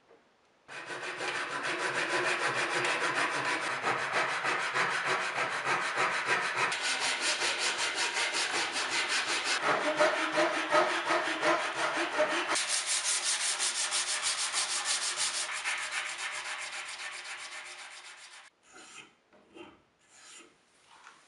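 Hand saw cutting a protruding wooden spline flush with the corner of a small wooden box: fast, even back-and-forth strokes that stop about eighteen seconds in, followed by a few short rubbing scuffs.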